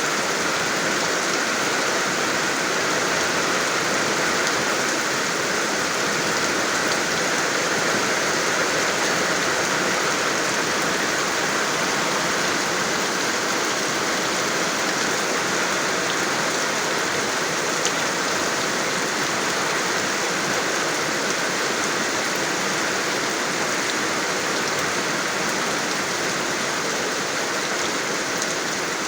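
Steady heavy rain falling, an even hiss with no let-up.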